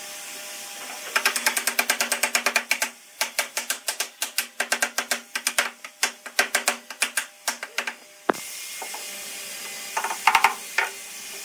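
Rapid, even mechanical clicking, about five or six clicks a second, for several seconds. It breaks off with a knock into a steady hiss, and a short run of louder clicks follows near the end.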